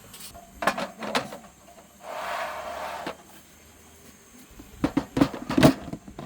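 Camping gear being handled: a few sharp knocks, then about a second of scraping or rustling, then a quick cluster of clattering knocks near the end.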